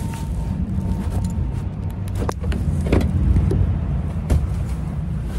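Car running, a steady low rumble, with a few separate sharp clicks near the middle.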